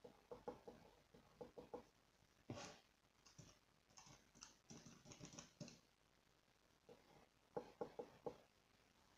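Faint clicking of calculator keys being pressed in short runs, with pen scratching on paper for a few seconds in the middle and a single knock about two and a half seconds in.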